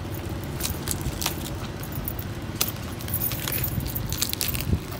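Crinkling foil and plastic wrapping being pulled and torn off a styrofoam box, with many short sharp crackles and snaps. A steady low rumble runs underneath.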